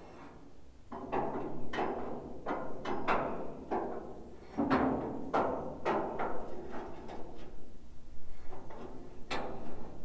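An irregular run of sharp metal knocks and clanks, more than a dozen, each with a short ring, as steel hinge brackets and parts are worked into place under a dump truck's bed.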